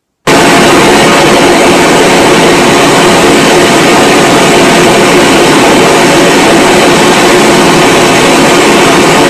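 Dodecahedron loudspeaker switching on suddenly and playing loud, steady pink noise, the test signal that excites the room for a reverberation-time measurement.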